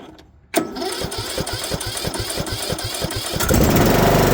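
Briggs & Stratton Platinum 540cc mower engine, choked, cranking on its electric starter after a click, in evenly spaced strokes, then catching about three and a half seconds in and running louder. A cold start on gasoline that has sat for a year.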